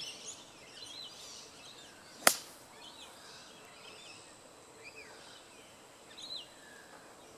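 A golf club strikes the ball on a short shot from the fairway: one sharp click a little over two seconds in. Birds chirp throughout.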